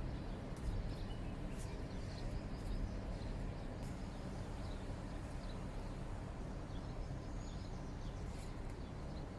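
Steady low background rumble with faint, scattered bird chirps and small ticks.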